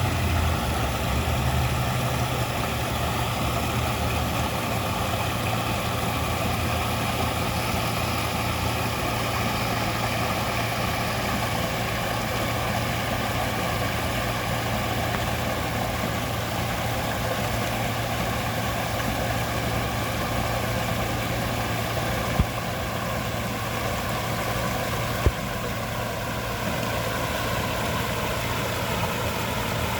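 Waterfall: water falling and rushing steadily, a dense even noise with a low rumble underneath. Two brief faint clicks break it, about twenty-two and twenty-five seconds in.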